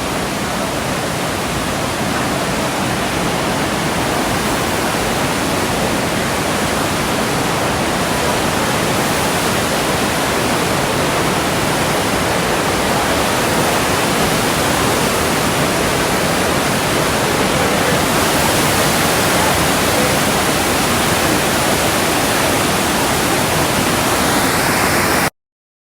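Creek waterfall rushing steadily, a loud even roar of falling water. It cuts out abruptly for a moment near the end.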